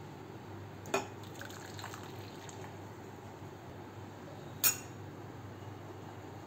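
Milky tea poured from a glass bowl into a ceramic teacup on its saucer, beginning with a sharp clink about a second in. A louder sharp clink of crockery comes about four and a half seconds in.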